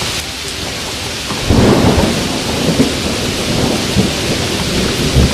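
Steady heavy rain, with a rumble of thunder that swells about a second and a half in and rolls on with low crackles.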